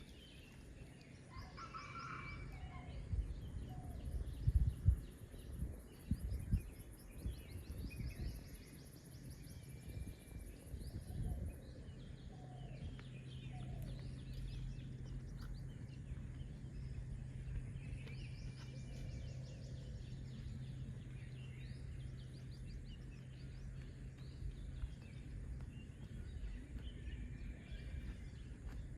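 Forest ambience: scattered bird calls and chirps over rapid high insect-like trills, with low rumbling in the first several seconds and a steady low hum through the middle.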